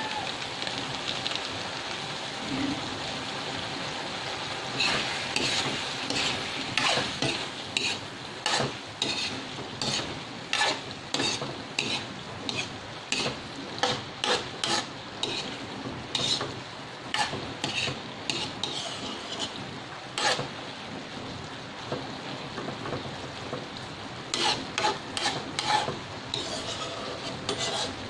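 A metal spatula scraping and stirring diced vegetables in a metal wok, in repeated quick strokes, over a steady sizzle of the simmering sauce. The strokes pause for a few seconds before starting again near the end.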